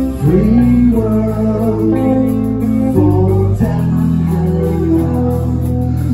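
Rock band playing live: electric guitar and bass guitar, with a male voice singing over them.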